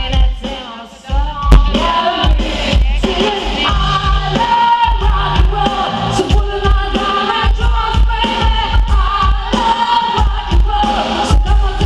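Live rock music from a band with a string orchestra: a woman sings lead over backing singers and a steady bass-drum beat. The music drops out briefly about a second in.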